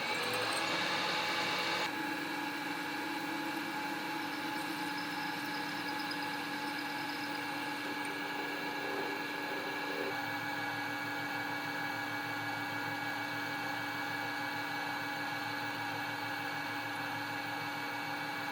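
Milling machine running with an end mill in its vertical spindle, a steady motor drone with constant whining tones as it cuts. The end mill is strained by the cut. The sound shifts slightly about two seconds in and again around ten seconds in.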